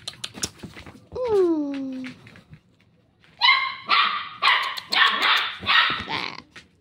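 Shih tzu puppy giving one falling whine, then a run of about six sharp yappy barks, roughly half a second apart.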